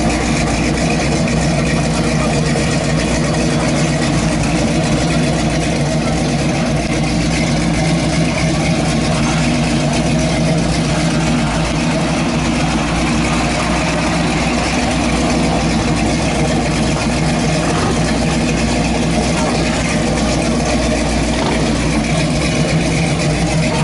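1968 Chevrolet Camaro SS V8 idling steadily through a loud exhaust.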